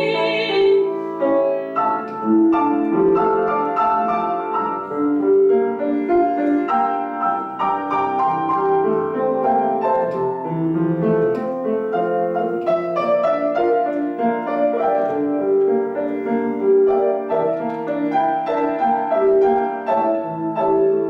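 Piano playing a slow instrumental interlude between verses of a song. A singer's held last note, with vibrato, ends about a second in.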